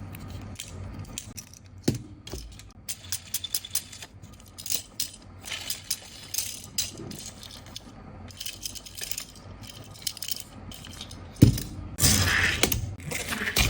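Small 1:64 alloy diecast construction vehicle models being handled: quick light clicks and metallic rattles, with one heavier knock near the end followed by a brief scraping rustle.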